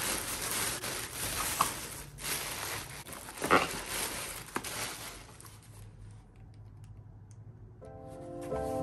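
Tissue paper rustling and crinkling as hands dig through it inside a cardboard gift box, for about five seconds, with a sharper crackle partway through. The rustling then dies away, and soft music starts near the end.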